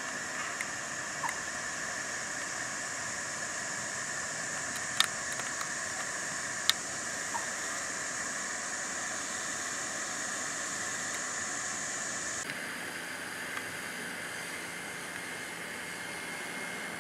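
Steady outdoor hiss of ambient noise, with two sharp clicks about five and seven seconds in. The background changes abruptly about twelve seconds in.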